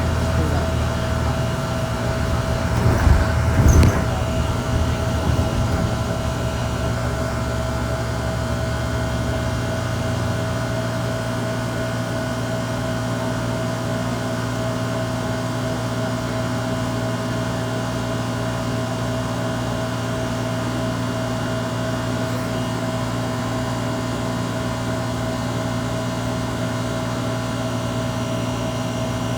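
City transit bus heard from inside while it runs, with a steady whining grind from its running gear, the weird grinding noise this bus makes. About three to four seconds in a brief louder rattle breaks in, and around ten seconds in the low engine rumble drops away while the whine carries on.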